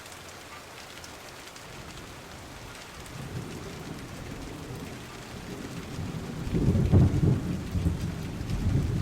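Steady rain hissing, with a low rumble of thunder that grows from about three seconds in and is loudest a little past the middle.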